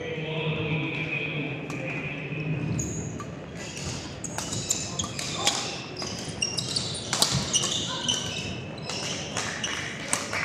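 A men's doubles racket-sport rally on an indoor court: sharp racket hits about once a second among the squeaks of sneakers on the floor. Voices are heard in the first couple of seconds.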